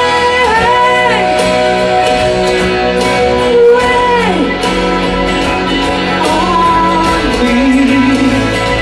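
A woman singing a slow rock ballad over guitar accompaniment, holding long notes that slide down in pitch.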